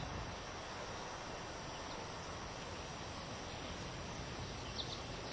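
Outdoor ambience in a pause between sentences: a steady hiss, with faint short high chirps near the end.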